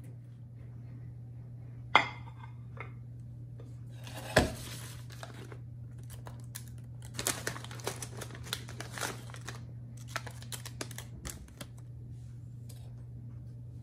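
Kitchen handling sounds: a sharp clack about two seconds in as vegetables are tipped from a plate into a stainless steel saucepan, and another loud knock a couple of seconds later as the plate is set down. Then, for several seconds, a plastic packet of dried kelp crinkles and stiff kelp pieces crackle and click as they are dropped into the pot. A steady low hum runs underneath.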